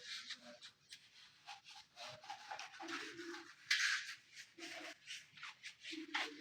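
Something rubbing or scraping across a surface by hand in quick, uneven strokes, like sanding or working a finish on a ceiling or wall, with one louder stroke a little before the middle.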